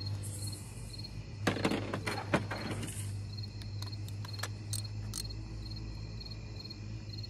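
Crickets chirping in a steady pulsing trill over a low hum. About a second and a half in comes a burst of rustling handling noise with one sharp clack, followed by a few scattered light clicks.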